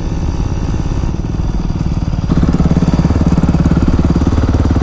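Dirt bike engines running as the bikes ride at low speed. About two seconds in, the sound jumps abruptly to a louder, fuller engine note that holds steady.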